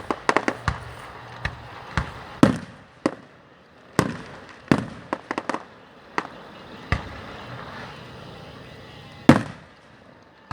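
Aerial fireworks bursting: sharp bangs at irregular intervals, several coming in quick bunches in the first few seconds, the loudest one about nine seconds in, some trailing off in a short rumble.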